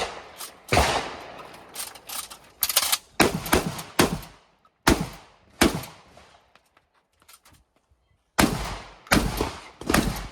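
Shotgun shots fired in rapid strings, some in quick pairs, each with a short echoing tail. About six seconds in there is a pause of about two and a half seconds with only faint clicks before the firing resumes.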